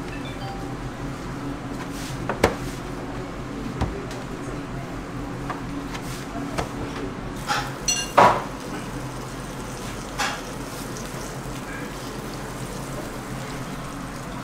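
Kitchen work at a floured counter and an electric pancake pan: a wooden rolling pin working scallion-pancake dough, with a few light knocks and clatters against a steady low hum. The loudest clatter comes about eight seconds in, as the pancake goes into the pan.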